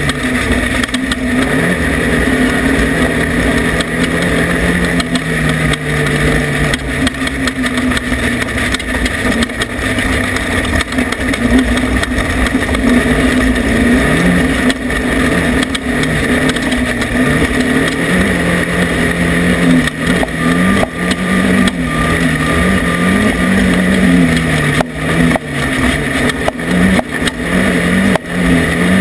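Off-road race vehicle's engine running hard, its pitch repeatedly rising and falling with the throttle over a steady rush of noise; the sound briefly dips several times near the end.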